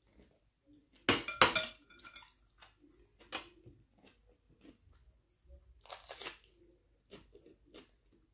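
A person eating close to the microphone: chewing, with several crisp crunching bites of raw vegetable such as red bell pepper, loudest about a second in and again around six seconds in.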